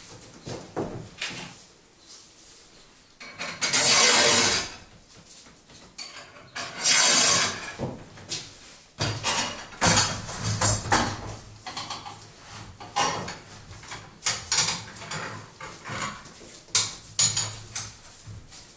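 Long steel threaded rods handled and fitted through a wooden bench frame: two scraping swishes, then a run of clicks, taps and knocks of metal on wood.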